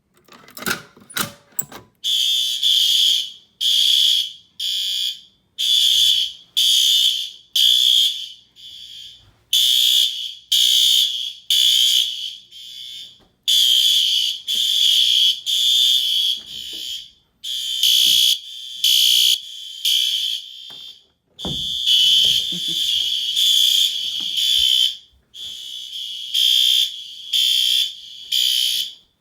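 A few sharp clicks, then several System Sensor fire alarm horn strobes start sounding together, set to low-volume temporal code 3. Because they are not synchronized, their high-pitched three-beep groups overlap in a ragged, uneven pattern.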